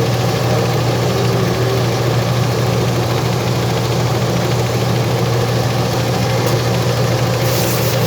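A machine running steadily with an even low hum. A hissing noise joins near the end.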